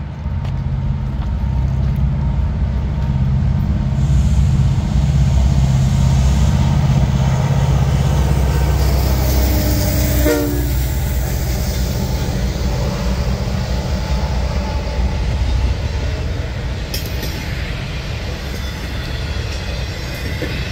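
Diesel-electric freight locomotives passing close by, their engines rumbling loudly, with the rumble easing after about ten seconds. Double-stack intermodal container cars then roll past with steady wheel-on-rail noise.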